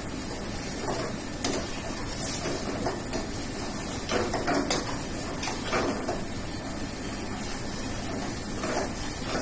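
A metal spatula scraping and knocking against a frying pan as food is stirred on a gas burner: irregular scrapes and clinks over a steady rushing background noise.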